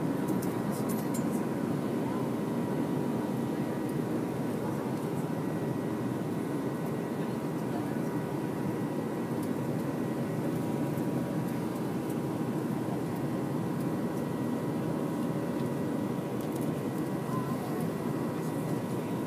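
Jet airliner engines at takeoff power, heard from inside the passenger cabin during the initial climb after liftoff: a steady rush of noise with a faint high steady whine.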